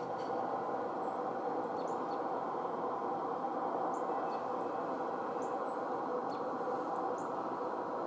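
Steady receiver hiss of 20-meter band noise from the MFJ-9420 SSB transceiver's speaker, thin and muffled-sounding, with no station coming back after a CQ call. A few faint bird chirps sound over it.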